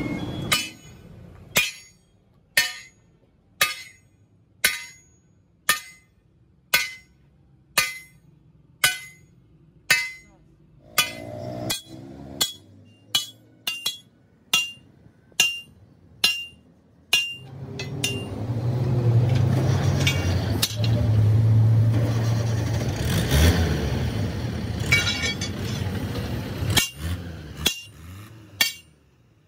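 Sledgehammer blows on a steel truck leaf spring laid across an anvil, about one ringing metal strike a second, as the spring's curve is hammered back into shape. For several seconds past the middle a louder motor hum runs under the blows.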